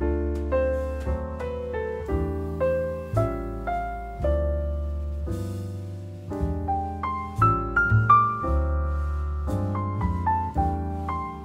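Background piano music: a slow melody of struck, fading notes over deep bass notes.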